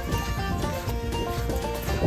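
Background music: held notes that change in steps over a steady low bass.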